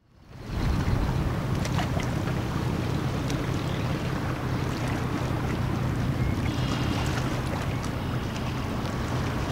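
Steady low drone of the Spruceglen's single diesel main engine as the 730-foot self-unloading bulk carrier passes, mixed with wind rushing on the microphone. It fades in over the first half second.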